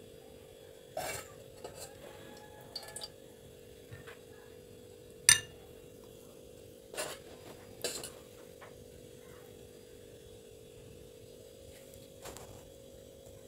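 Scattered light clinks and knocks of kitchenware, about eight in all, the sharpest a little past five seconds in, over a steady low hum.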